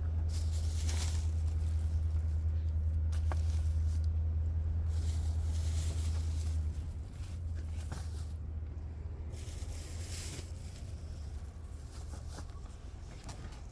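Car running on the road, a steady low engine and road rumble heard from inside the cabin that eases off about seven seconds in.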